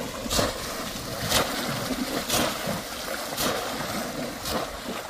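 A bamboo plunge basket slammed down into shallow muddy water about once a second, five splashing strokes, over continuous sloshing of disturbed water as the trap is worked to catch fish.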